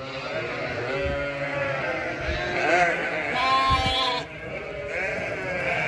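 Sheep and lambs bleating, several calls overlapping, with one louder call about three and a half seconds in.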